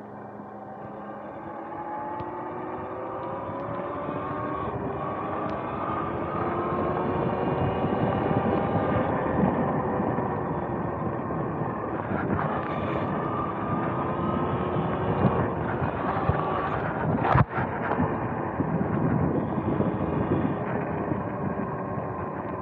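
Electric dirt bike under way: its motor whines, rising in pitch over the first few seconds as it speeds up and then holding steady, over wind and tyre noise. A single sharp knock comes about three-quarters of the way through.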